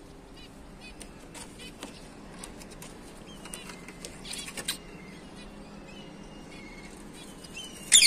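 Ringneck parakeet chicks chirping faintly, with a short louder call about four and a half seconds in; loud, harsh, repeated squawking breaks out right at the end.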